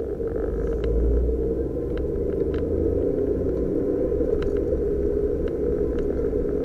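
Suzuki Jimny JB23's 660 cc turbocharged three-cylinder engine and tyres on the road, heard from inside the cabin as a steady low rumble, with a few light ticks scattered through.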